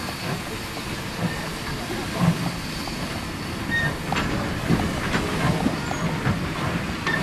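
Steam locomotive C56 44 and its passenger coaches rolling slowly past, the wheels clicking over rail joints in a repeated rhythm.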